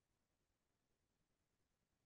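Near silence: the audio is almost completely silent, with no audible sound.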